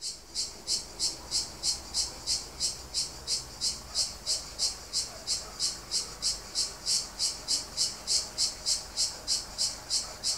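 An insect chirping steadily, about three high-pitched pulses a second in an even rhythm.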